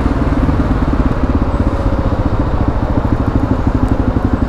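Kawasaki KLR650's single-cylinder engine running under the rider on the road, a steady, evenly pulsing engine note whose pulses grow more distinct near the end.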